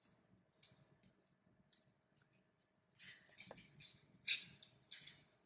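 Short, sharp clicks and light scrapes of metal lab-stand parts and a small heating device being handled and set in place under a vessel of water, about eight in all, bunched in the second half.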